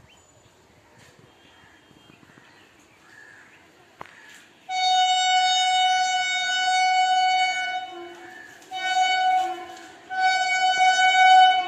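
Horn of a WAP-7 electric locomotive sounding as it approaches: one long blast of about three seconds, then two shorter blasts, a steady high-pitched tone.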